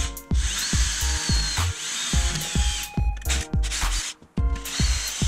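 Cordless Bosch drill-driver driving screws through a metal wall bracket, its motor whining up in several short runs with brief pauses between. Background music with a steady beat plays underneath.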